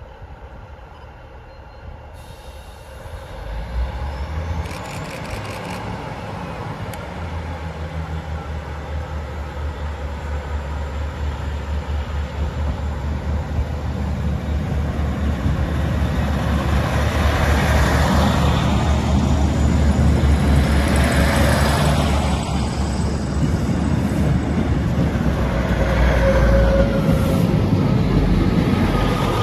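Class 156 diesel multiple unit pulling away and passing close by: its underfloor Cummins diesel engines drone steadily under power, growing louder from a few seconds in as the train nears, with the rumble of the coaches rolling past.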